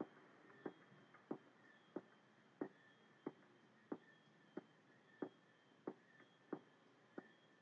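Near silence with faint, evenly spaced ticks, about three every two seconds.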